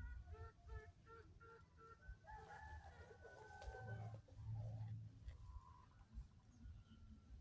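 Faint zebra dove (perkutut) cooing: a quick run of short notes in the first two seconds, then a longer wavering call.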